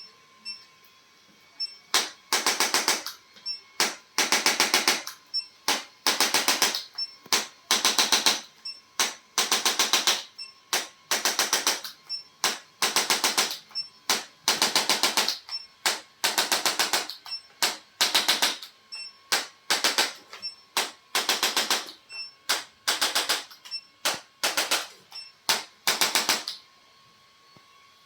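A percussive treatment device tapping rapidly in short bursts, each about half a second to a second long, repeating every second or two.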